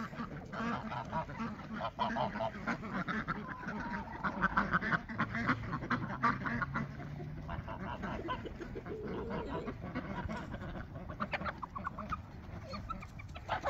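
A flock of domestic ducks quacking and chattering, many short calls overlapping.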